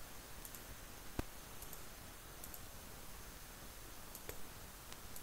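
Computer mouse clicks: a few scattered single clicks over faint hiss, with a louder click about a second in.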